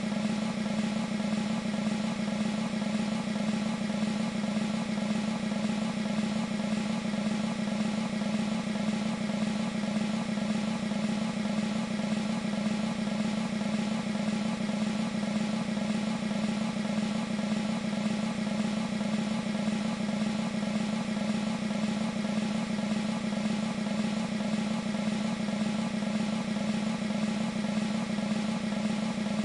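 Military snare drum roll sampled on an E-mu Proteus 2 sound module, held as one continuous, even roll without a break.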